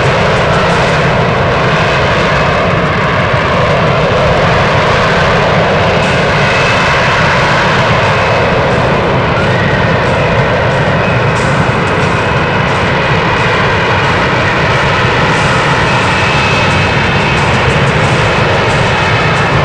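F-35B's Pratt & Whitney F135 engine and shaft-driven lift fan running at high power as the jet hovers in its vertical-landing mode, a loud, steady roar with faint whining tones above it.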